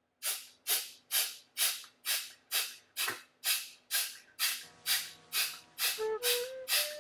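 Rhythmic forceful exhalations of Kapalabhati breathing: short, sharp hissing puffs through the nose, about two a second, each fading quickly. About six seconds in, a flute melody comes in over them.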